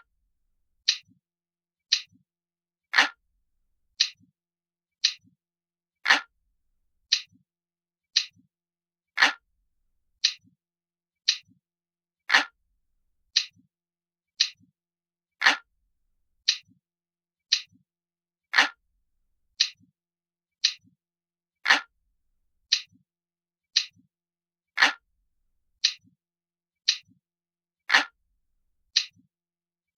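Analog clock ticking steadily, about once a second, with every third tick louder and deeper.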